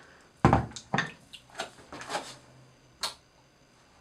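Several irregular knocks and clunks of objects being handled and set down. The first, just after the start, is the heaviest, and a sharp click comes near the end.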